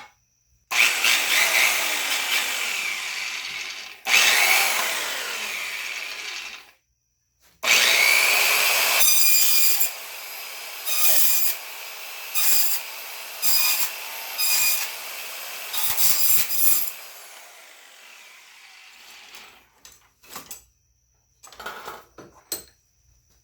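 Electric double-cut metal shear cutting thick aluminum: three long loud spells of cutting, then the motor running steadily with about eight short louder bursts as the blades bite. It winds down and stops toward the end, followed by a few faint knocks.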